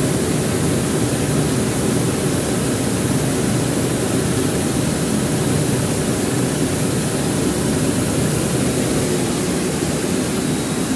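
Rice mill machinery running steadily: a loud, even mechanical noise with a low drone and no breaks.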